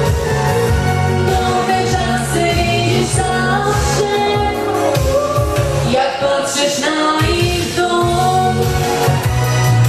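A Silesian pop song sung by a female vocal duo over an instrumental backing.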